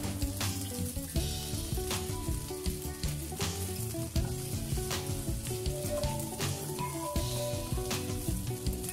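Chicken and thinly sliced carrot and potato sizzling in hot oil in a pan while being stir-fried, the spatula knocking and scraping the pan many times. Soft background music plays underneath.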